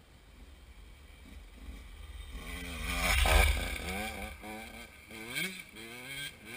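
A racing dirt bike approaches and passes close by about three seconds in, then pulls away with its engine revs climbing and dropping again and again as it fades.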